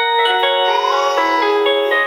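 1byone wireless doorbell chime playing one of its built-in electronic melodies: a quick run of thin, bell-like notes with no bass and a short sweep up and down in pitch about halfway through.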